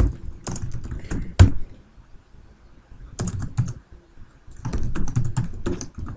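Typing on an Atari 8-bit computer's keyboard, with command words entered at the prompt. There is a run of keystrokes, a pause of about a second and a half, a few more keys, then a quicker run near the end.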